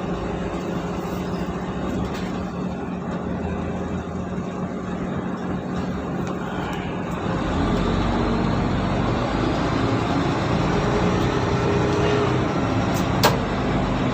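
Mercedes-Benz O530 Citaro city bus running with a steady engine hum. About seven and a half seconds in, the engine grows louder with a heavier low rumble, as under acceleration. A single sharp click comes near the end.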